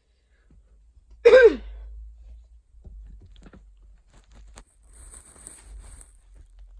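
A single short, loud cough from a person with a summer cold, its voice falling in pitch, about a second in. A few faint clicks and a brief soft hiss follow.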